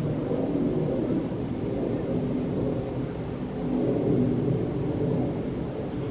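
Jet engines of a Spirit Airlines Airbus A320-family airliner flying overhead with its landing gear down: a steady low rumble that swells a little about four seconds in.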